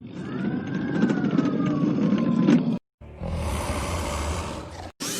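Sound effects for Predaking, the mechanical dragon: a rumbling growl with a slowly falling whine and scattered clicks, lasting nearly three seconds, then after a brief silence a harsh hissing blast for about two seconds.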